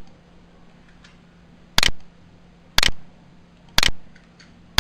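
Four sharp clicks, evenly spaced about a second apart, each dying away quickly.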